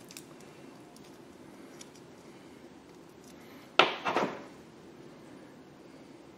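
Small plastic parts packaging being handled: a sharp clack about four seconds in, followed a moment later by a second, softer one, over quiet room tone.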